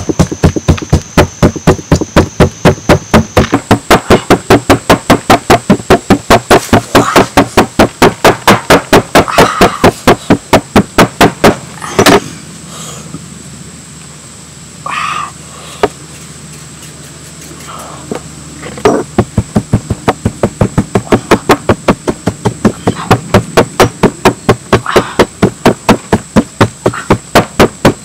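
Stone pestle pounding spices in a stone mortar, quick regular strokes at about four a second as the dry spices are ground toward a paste. The pounding stops for several seconds in the middle, then starts again.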